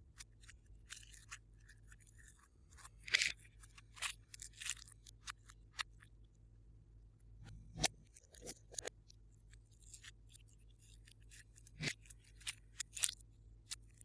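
Glossy slime being worked and mixed by hand, giving irregular sticky clicks and small crackling pops over a faint steady hum.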